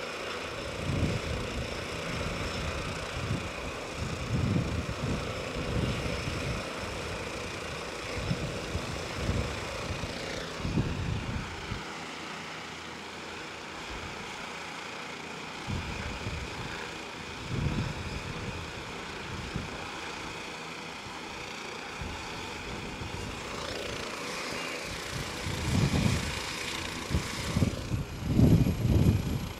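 Turbine helicopter running on the ground with its rotor turning before takeoff: a steady turbine whine, with irregular low gusts of rotor wash buffeting the microphone that grow heavier near the end.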